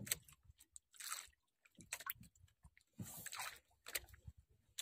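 Faint scratchy rustles and a few clicks as a fishing hand line is pulled in hand over hand, with the line rubbing through the hands.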